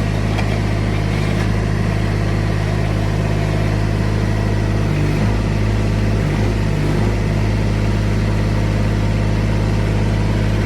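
Three-cylinder Yanmar 3TNV74F diesel of a mini excavator running steadily, its note wavering briefly about halfway through as the machine is worked.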